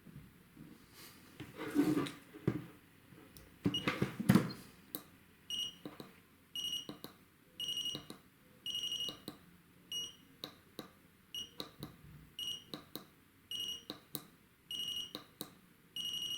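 Small battery-powered spot-welder board welding nickel strip onto battery cells. A short beep comes about once a second, each with a sharp click from the weld, after a few knocks of handling in the first seconds.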